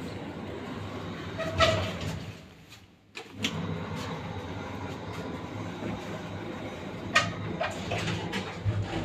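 KMZ passenger lift (1986) running: a steady low hum and rattle from the car and its machinery, with a loud clatter about one and a half seconds in and sharp clacks again from about seven seconds in.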